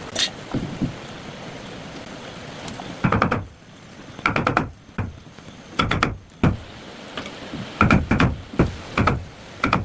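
A series of about eight sharp knocks at uneven intervals, some in quick pairs, starting about three seconds in after a steady hiss.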